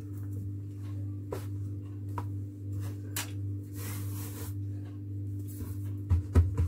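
Hands handling and folding a sheet of puff pastry on a floured marble counter: soft rustles and light pats over a steady low hum, with a short hiss about four seconds in and a few knocks near the end.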